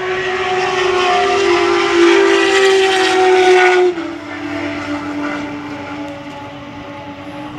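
Turismo Carretera race car engines running at high revs as the cars pass the grandstand, a loud, steady engine note. It cuts off abruptly about four seconds in, leaving a quieter, lower engine note from cars further away.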